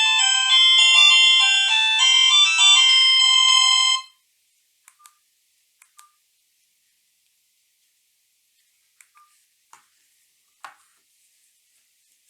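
Strike R30 mobile phone playing one of its preset ringtones, a quick electronic melody of clear, bright notes, which cuts off suddenly about four seconds in. A few faint clicks follow in the quiet.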